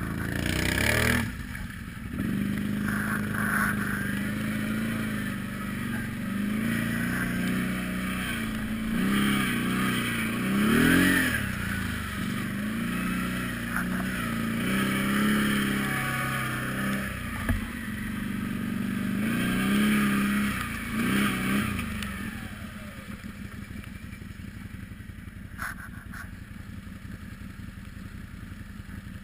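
Quad bike engine being ridden through mud, its revs rising and falling again and again. About two-thirds of the way through it drops to a quieter, steady idle. A single sharp knock comes a few seconds before the drop.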